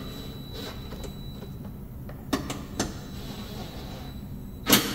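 Cordless drill/driver running a coarse-thread bolt into a mower deck's plastic belt end cover: a few brief clicks and knocks, then one loud short burst near the end.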